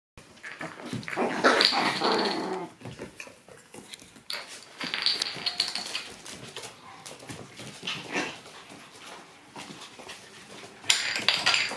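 Young Shiba Inu puppies, one to two months old, making play noises in irregular bursts, loudest for a couple of seconds about a second in, with shorter bursts later.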